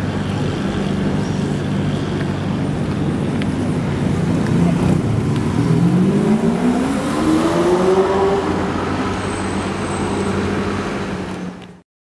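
Mansory Stallone (Ferrari 599) V12 running at low revs as it pulls away, then revving up in a rising pitch from about five seconds in and holding higher. The sound cuts off suddenly near the end.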